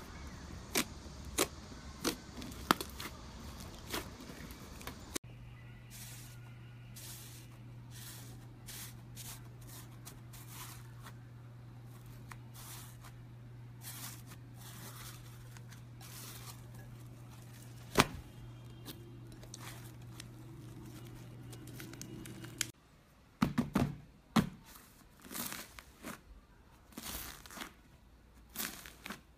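Slime being squeezed and kneaded by hand, giving a string of sticky clicks and pops. After a cut near the end, fingers pressing into crunchy bead-filled slime crackle in quick bursts.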